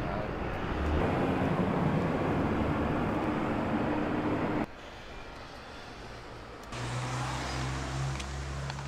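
Motor vehicle engine and road traffic noise with a steady low hum; it cuts off abruptly just under five seconds in to quieter street sound, and another vehicle's engine hum comes up about two seconds before the end.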